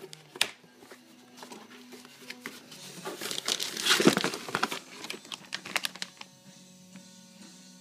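Clear plastic bag crinkling and rustling as a holster wrapped in it is lifted out of a cardboard shipping box. The rustling is loudest about four seconds in, with scattered sharp clicks and knocks of the box and its contents before and after.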